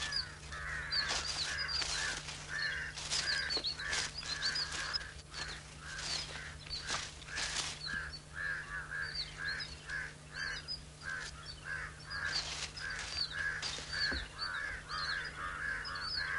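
Birds calling: a continuous run of short, harsh calls, several a second, with thinner high chirps above them and scattered light clicks and rustles, over a steady low hum.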